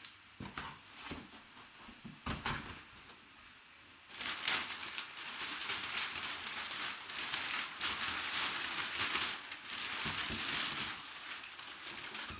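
Brown kraft packing paper being pulled out of a cardboard box and crumpled, rustling. It comes in short separate rustles for the first few seconds, then runs on without a break until it stops near the end.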